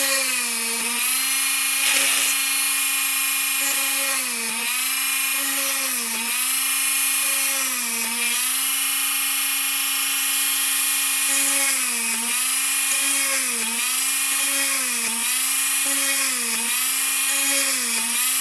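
Minicraft hand-held mini drill with a 1 mm tungsten carbide bit running at a steady high whine. Its pitch dips briefly and recovers each time the bit bores a hole through the copper-clad circuit board, about every second or two, and more often in the second half.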